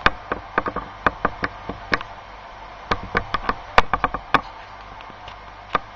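Sharp, irregular clicks and knocks in quick clusters from OO gauge model wagon wheels running over rail joints and pointwork, with a last single click near the end.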